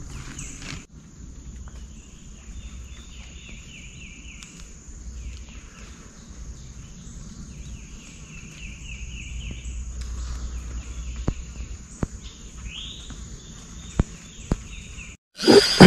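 Insects and birds calling: a steady high insect drone with repeated groups of rapid chirps and a few light clicks. Near the end a sudden loud ratcheting burst breaks in, a fishing reel's drag giving line as a fish takes the bait.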